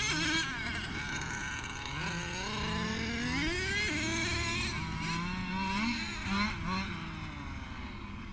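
Small two-stroke gas engine of a 1/5-scale RC desert buggy revving up and down as it is driven, its pitch rising and falling over and over.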